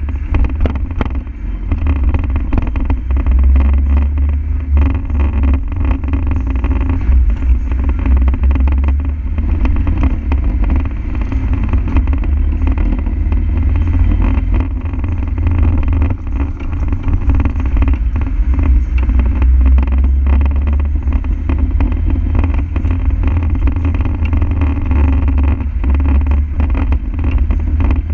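Land Rover Defender's diesel engine running with a steady low rumble.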